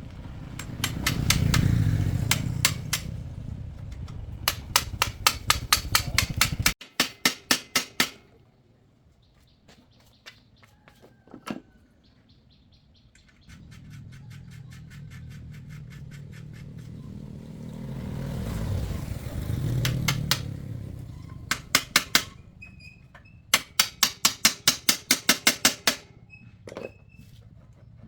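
Several runs of rapid, evenly spaced sharp taps, about five or six a second, each run lasting one to three seconds, over a low rumble that swells and fades. There is a quieter pause in the middle of the stretch.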